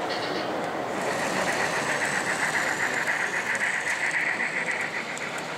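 Gauge 1 (1:32 scale) model train running along the layout's track: a steady rolling whir, with a higher humming noise that swells from about a second in and fades out near the end.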